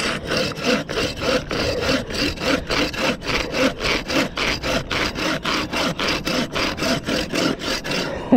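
Hand saw cutting through a wooden log, in quick even back-and-forth strokes, about four a second.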